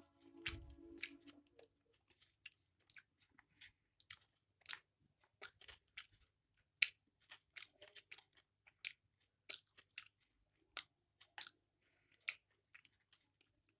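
Close-miked chewing of chow mein noodles with chicken and egg: irregular short wet smacks and crisp clicks, one or two a second.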